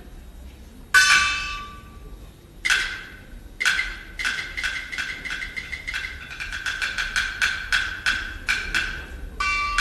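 Qinqiang opera percussion accompaniment: sharp struck hits with a short ringing tone, three about a second and a half apart, then a run of strikes that speeds up. A louder ringing strike comes near the end.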